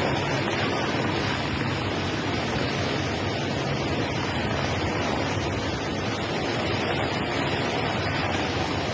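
Helicopter hovering close by, its rotor and engine noise blended with the rush of fast-flowing floodwater into one steady, dense noise.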